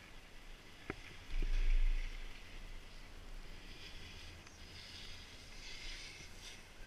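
Six-seat detachable chairlift passing a lift tower: a sharp click about a second in, then a brief low rumble as the chair's grip runs through the tower's sheave train, followed by a faint hiss.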